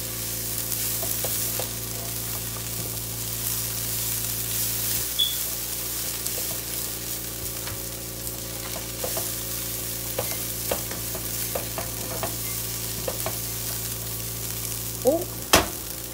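Broccoli and minced garlic sizzling as they are stir-fried in a skillet, with a cooking utensil scraping and clicking against the pan as it stirs. A louder knock comes near the end.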